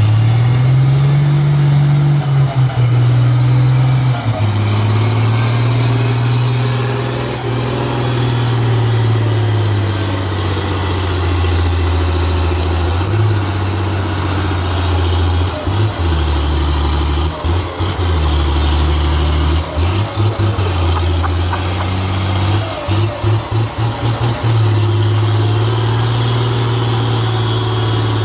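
Heavy 4x4 army-style cargo truck's diesel engine running under load as the truck crawls through soft sand and mud, revving up and easing off in long swells. There are a few brief dips in the sound about two-thirds of the way through.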